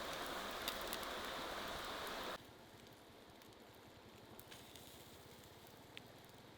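A steady crackling hiss with scattered small ticks cuts off abruptly about two seconds in, leaving quiet outdoor ambience with one faint tick near the end.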